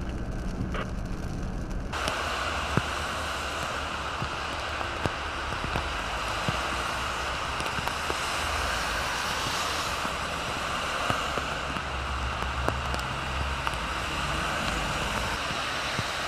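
Low engine hum inside a car, then, from an abrupt cut about two seconds in, a steady hiss of traffic on a rain-soaked multi-lane road. Tyres spray on wet asphalt over a low rumble of passing cars and buses.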